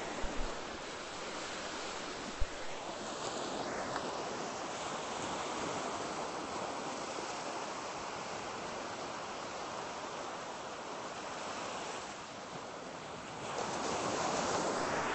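Surf breaking and washing up on a beach: a steady rush of waves that swells louder near the end, with one sharp click about two and a half seconds in.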